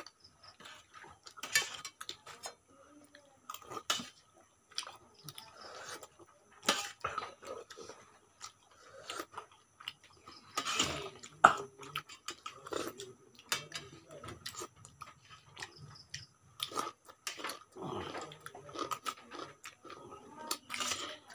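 Steel spoons clinking and scraping against a large steel plate of chicken curry in irregular, scattered knocks, with chewing and slurping sounds of people eating in between.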